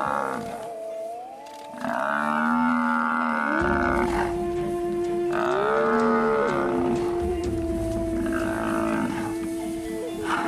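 Dramatic drama-score background music: long held notes with louder, wavering melodic passages swelling in and out over them.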